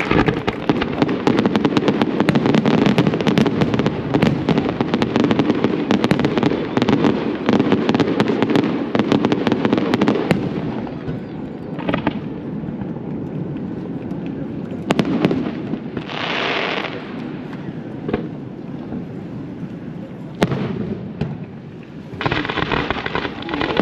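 Fireworks display: a rapid barrage of bangs and crackles for about the first ten seconds, then a lull with scattered single bangs and a brief hiss, then another dense barrage near the end.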